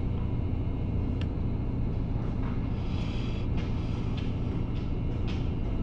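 Steady low engine rumble, with a few faint knocks.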